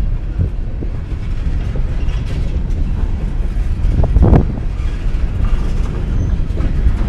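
Empty coal train of open hopper cars rolling past, its wheels clattering over the rails with a steady rumble. One louder bang comes about four seconds in.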